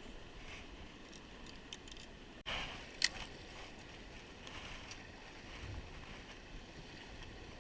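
Faint steady outdoor noise on a small boat on a river, with a short rush about two and a half seconds in and one sharp click just after it.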